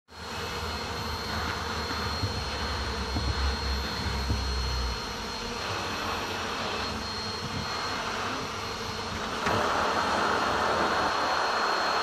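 A bee vacuum running steadily while its hose sucks honeybees off a clustered swarm, with the bees buzzing around the nozzle. The hum grows louder about three quarters of the way through.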